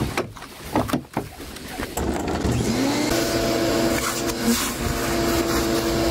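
A few knocks and rustles as debris is pulled out by hand. Then, about two seconds in, a shop vac switches on, its motor whining up to a steady run as it sucks leaves and dirt out of the convertible-top well.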